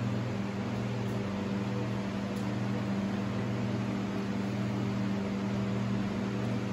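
A small motor running: a steady low hum with an even hiss over it.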